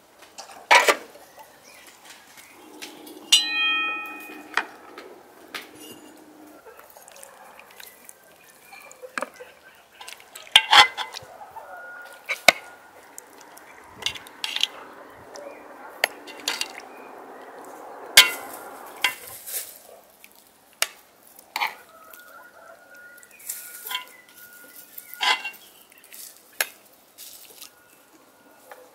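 Metal spoons and forks clinking and tapping against a metal cooking pot and plates in a series of separate sharp clinks, with a short pitched call about three seconds in.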